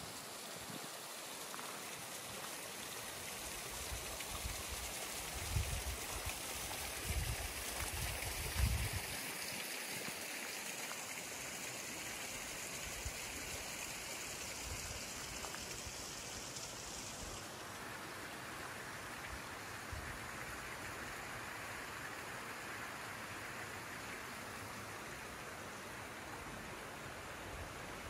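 Steady rushing of a tall waterfall and the stream below it, an even wash of water noise. A few low thumps come through in the first third, and a little past halfway the rush turns deeper as the higher hiss drops away.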